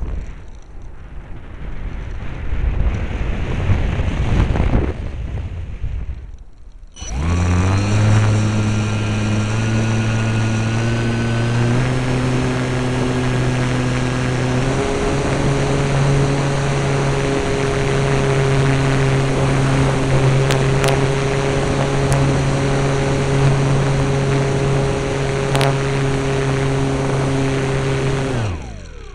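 Radio-controlled model airplane's motor and propeller heard from the plane's onboard camera. For the first six seconds there is only a rushing, wind-like noise; about seven seconds in the motor starts with a drone that rises in pitch as it throttles up, steps up twice more, holds steady, and cuts off near the end.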